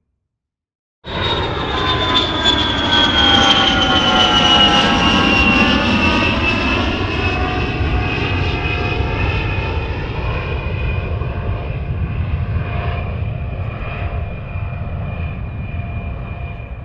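Airplane engine noise: a steady low rumble under a high whine that falls in pitch over the first few seconds, then levels off. It cuts in suddenly about a second in and eases off slightly near the end.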